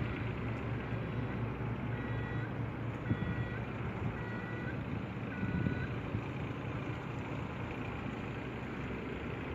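Backhoe diesel engine running steadily while its warning alarm sounds a falling two-note beep about once a second for roughly four seconds, starting about two seconds in. Two brief clunks come a little after the beeps start and again near the middle.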